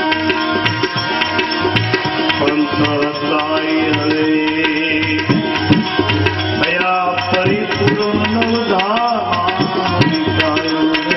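Gujarati bhajan music: tabla keeping a steady rhythm under held melodic notes, with a gliding melody line in the middle.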